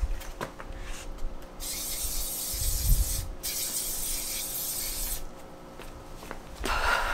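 Aerosol spray can hissing in two long sprays with a short break between, laying a second sealing coat over an oil pastel drawing.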